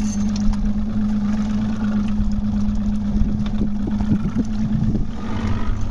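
Boat engine idling with a steady drone that holds one even pitch.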